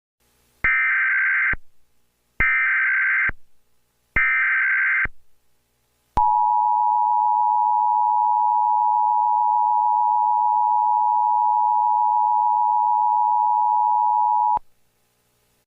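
Emergency Alert System SAME header: three short bursts of screeching data tones, each under a second, followed by the EAS two-tone attention signal held steady for about eight seconds before cutting off abruptly. The sequence marks the start of a new emergency alert broadcast.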